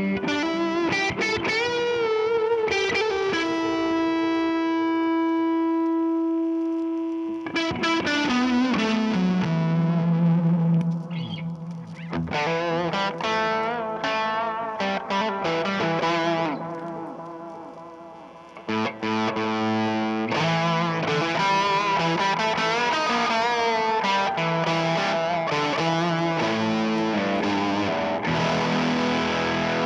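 Squier Jazzmaster electric guitar played through a Timmy overdrive, Basic Audio Futureman and Skreddy Screwdriver stacked at once, giving a distorted, sustained tone. The guitar plays chords and single notes, with one long held note early on and a short fade-out a little past the middle before the playing picks up again.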